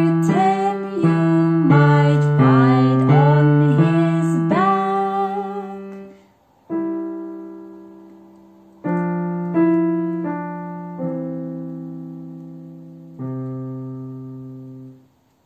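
Yamaha digital piano played with both hands, a simple children's tune, with a woman's voice singing along wordlessly for about the first six seconds. Then a few slow chords are struck, each left to ring and fade, the last dying away near the end.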